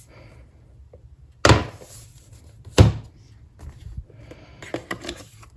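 Two sharp thuds about a second and a half apart as the MacBook Pro and its box are handled and set down, followed by light clicks and rustling of the packaging.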